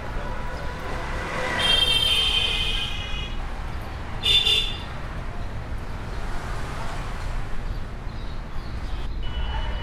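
Street traffic noise with a steady low rumble. Vehicle horns sound twice: a longer honk starting about a second and a half in, and a short one just after four seconds in.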